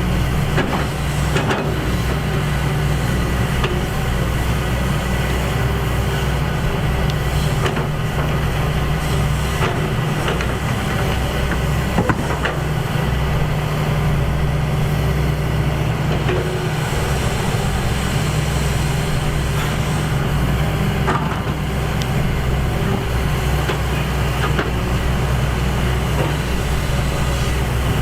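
Excavator's diesel engine running steadily under load, with a few sharp metal knocks scattered through.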